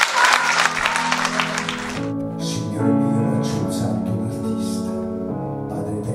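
Audience applause that tapers off over the first two seconds as a small band starts a slow piece. Low held notes come in under the clapping, then a melody of long sustained notes takes over.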